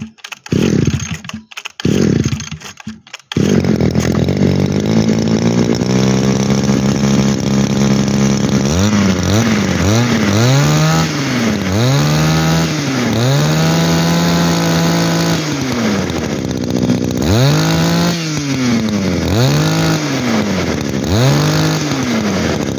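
Echo Green 24cc two-stroke brush cutter engine being pull-started. A few quick pulls come in the first three seconds, and it catches about three seconds in. It then runs and is revved up and down over and over with the throttle, and it runs well.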